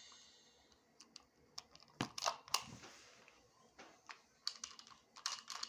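Faint, irregular clicks and taps, a dozen or so short ones, loudest around two seconds in and again near the end.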